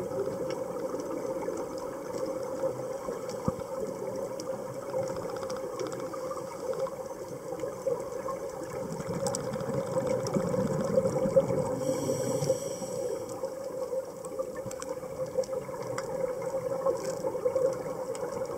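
Underwater ambience heard by a submerged camera: a steady hum and wash of water noise with scattered faint clicks, swelling somewhat in the middle.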